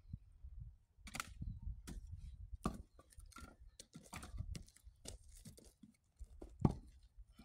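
Split firewood being handled and dropped: several hollow wooden knocks and clatters as split pieces are picked up and tossed down, the loudest knock near the end.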